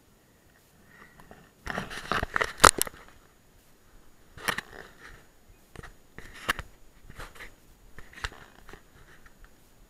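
Skis shuffling on packed snow: a cluster of crunching scrapes about two seconds in, then single short crunches every second or two.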